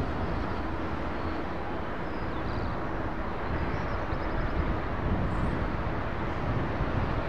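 Airbus A350-1000 airliner on short final, its Rolls-Royce Trent XWB jet engines at approach power giving a steady, deep jet rumble as it flies low past just before touchdown.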